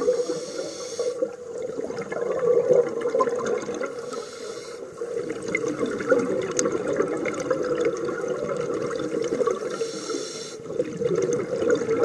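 Scuba regulators underwater: the gurgling rush of divers' exhaled bubbles, rising and falling in surges with their breaths, with a brief higher hiss at the start and again near the end.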